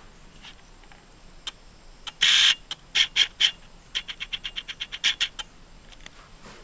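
An animal calling: one loud, rasping call a little over two seconds in, then three sharp chirps and a rapid chattering run of about a dozen chirps, roughly nine a second.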